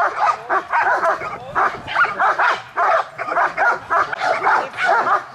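A dog barking over and over, about three short barks a second.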